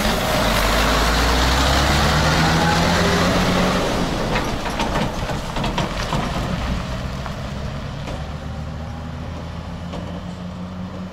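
Diesel engine of a Volvo semi-truck with trailer pulling away and driving off. It is loudest in the first few seconds and fades steadily as the truck goes down the road.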